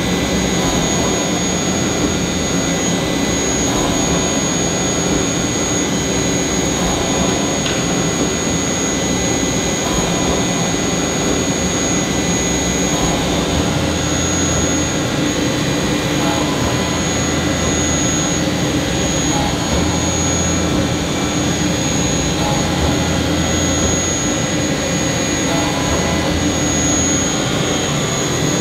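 Doosan PUMA 2600SY II CNC lathe running a drilling cycle in 316 stainless steel with a Kennametal SGL drill and coolant spray: a steady machining noise with a constant high-pitched whine over it. The drill sounds healthy, still going strong at about 400 holes.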